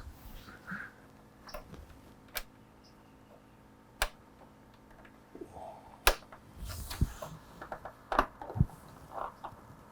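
Plastic push-pin fairing clips being pressed into motorcycle fairing plastic: several separate sharp clicks as they snap into place, with light handling and rustling between them.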